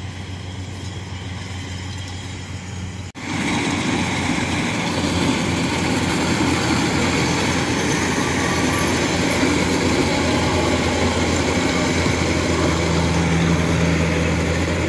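Kubota rice combine harvesters running while harvesting: first a steady diesel engine drone from a combine some way off, then about three seconds in it breaks off and gives way to a louder, noisier engine and threshing sound from a Kubota DC-105 combine close by.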